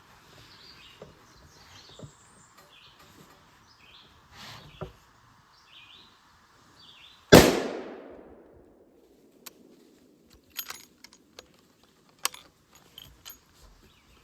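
Birds chirping faintly, then a single shot from a 28 Nosler hunting rifle about seven seconds in, with a long echo dying away. A few faint clicks follow.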